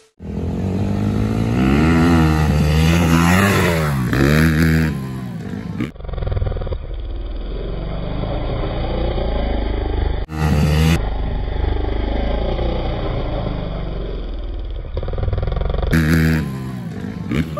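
Dirt bike engine revving up and down several times. From about six seconds in, the engine sound is slowed down and duller for a slow-motion replay of the jump, then returns to normal speed near the end.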